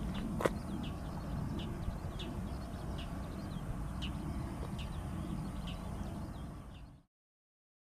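Outdoor seaside ambience: a steady low rumble with a bird's short, high chirps repeating about once a second, and one sharp click about half a second in. It fades out about seven seconds in.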